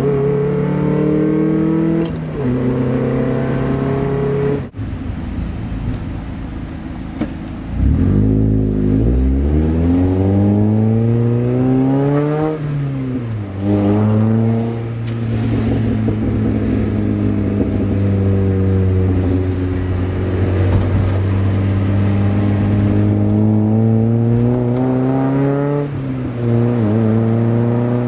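2000 Mazda Miata's 1.8-litre four-cylinder through an Enthuza XR axle-back with a Magnaflow straight-through muffler and a straight pipe in place of the resonator, heard from inside the open cockpit. Early on it backfires on overrun. About eight seconds in it accelerates hard with the revs climbing, shifts up, then runs steadily, with another gear change near the end.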